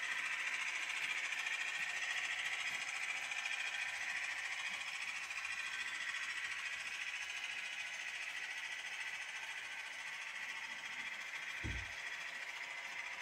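A long model-railway freight train of hopper wagons rolling along the track, a steady rolling noise that slowly grows fainter. A brief low thump near the end.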